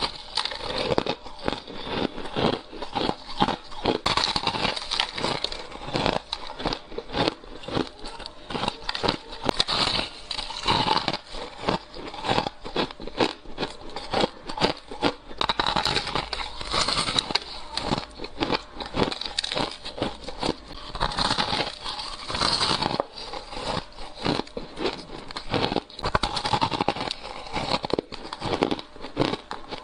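Soft ice and freezer frost crunching as it is bitten and chewed, a dense, unbroken run of crisp crackling crunches.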